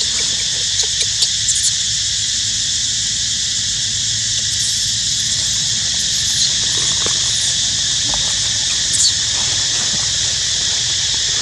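Steady, loud chorus of insects such as cicadas or crickets, with a few brief high-pitched squeaks, about a second and a half in, around four to five seconds and around nine seconds.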